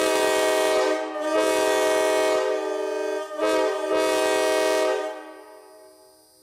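Nathan Airchime K5LA five-chime locomotive horn, with its 2 and 4 bells reversed, sounding its chord loudly in a series of blasts: a long one with a brief dip, then a short one and another long one that stops about five seconds in, its echo fading afterwards.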